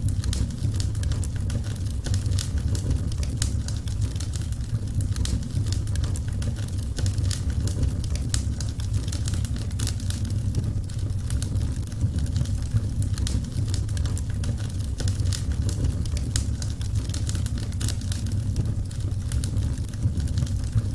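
Burning wood fire in a fireplace crackling, with frequent small irregular pops and snaps over a steady low rumble.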